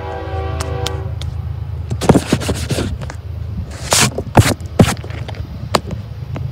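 Air horn of an approaching diesel locomotive, BNSF 7241, sounding a multi-note chord that stops about a second in, over the steady low rumble of the train's engines. Gusts of wind buffet the microphone about two seconds in and again around four to five seconds.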